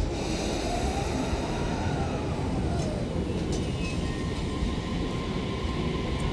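JR East Tokaido Line electric commuter train pulling away from the platform. The motors give a whine that rises in pitch as it accelerates, over a steady rumble of wheels on rails.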